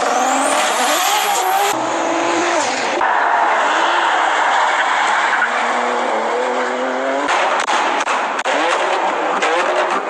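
Nissan GT-R R35's twin-turbo V6 running hard at high revs, its pitch climbing in the first two seconds and then rising and falling. The sound changes abruptly twice in the first three seconds.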